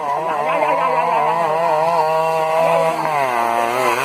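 A small engine buzzing, its pitch wavering up and down and dipping briefly about three seconds in.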